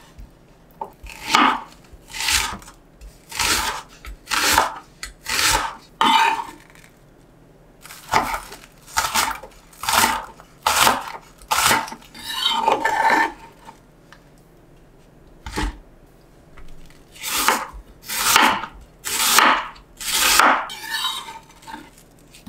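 Kitchen knife slicing a Korean green onion (daepa) on a wooden cutting board: separate single cuts about one a second, each ending with a crisp tap of the blade on the board, in three runs with short pauses between.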